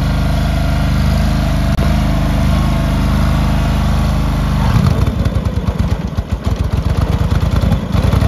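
Cub Cadet garden tractor engine running. It holds a steady note for the first half, then about halfway through turns into an uneven, pulsing beat, and it evens out again near the end.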